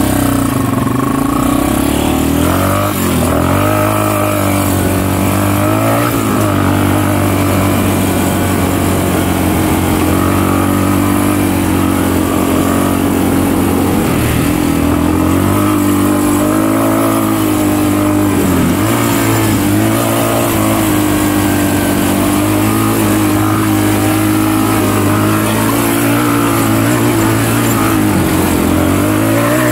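Yamaha Raptor 350 ATV's single-cylinder four-stroke engine pulling hard up a steep, wet climb. The engine note sags and rises again several times as the throttle is eased and opened, about 3, 6 and 18 seconds in and near the end.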